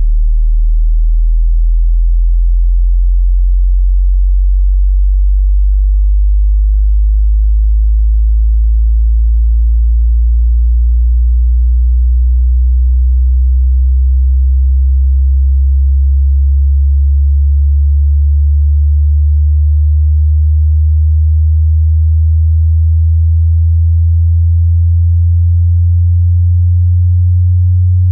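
Generated pure sine bass test tone sweeping slowly and smoothly upward from a very deep bass toward the upper bass, loud and steady throughout. It is a low-frequency sweep for checking whether a speaker reproduces deep bass cleanly or distorts and rattles at its resonance.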